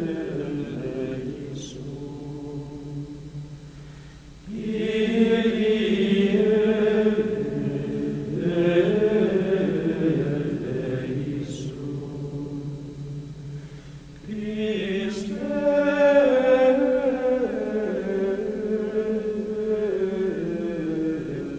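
Background music of voices chanting in long held notes that shift slowly from chord to chord, swelling louder about four and a half seconds in and again about fourteen seconds in.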